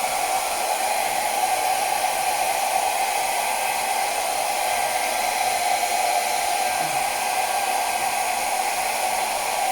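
Handheld hair dryer running steadily on its lowest setting: an even rush of blown air with a steady whine in it.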